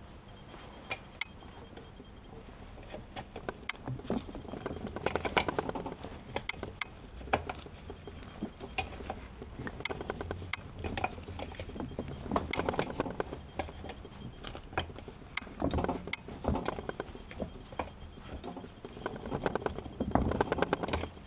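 Metal hand tools clinking, tapping and scraping against the metal parts of a 1970s Honda 125 SOHC motorcycle engine during a teardown. Scattered sharp clinks are broken by several short bursts of rapid clicking.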